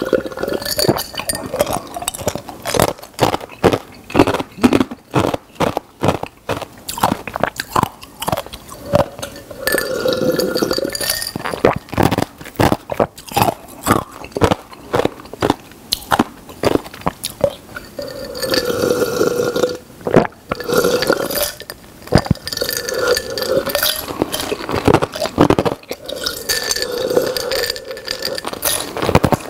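Close-up mouth sounds of a person gulping a drink from a glass in several long swallowing stretches. Between the gulps come many small mouth clicks and the clink of the glass.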